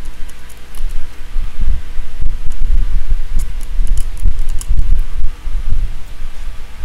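A drawknife shaving a wooden table leg by hand: short, scattered scraping cuts, clustered a little past the middle, over a heavy, uneven low rumble and thumping.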